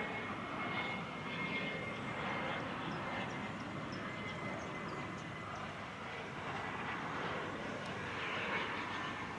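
Twin turbofan engines of a Cessna 510 Citation Mustang on final approach: a steady jet rush with a thin high whine that fades after the first couple of seconds.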